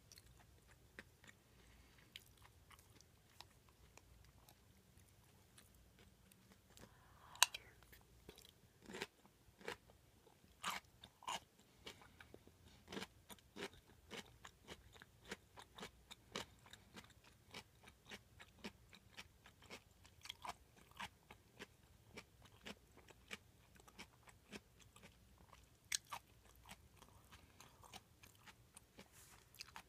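A person chewing food with the mouth: irregular wet, crunchy clicks and smacks, with a loud crunch about a quarter of the way in and another near the end.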